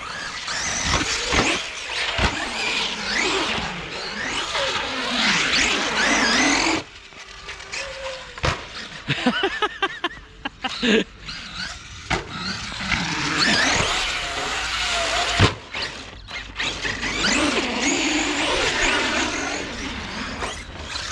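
Traxxas brushless electric RC monster truck driven hard, its motor whine rising and falling in pitch as it accelerates and slows, with tyres rumbling and scrubbing on concrete.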